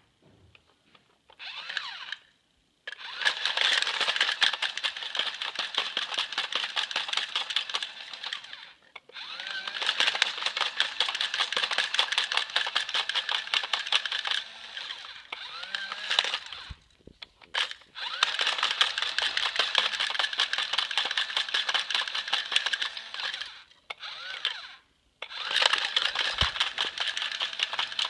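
A dog's metal collar tags jingling in rapid, rhythmic clicks as the dog humps. The jingling comes in long runs of several seconds, broken by short pauses.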